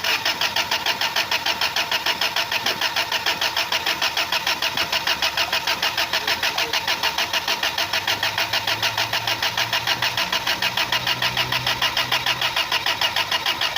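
A rebuilt engine being cranked by its starter motor without catching, a steady pulsing at about six beats a second with the starter's whine underneath.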